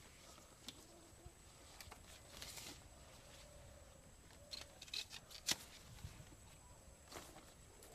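Sickle cutting taro (kachu) stalks among the leaves: faint scattered snaps, crackles and leaf rustles, the sharpest snap about five and a half seconds in.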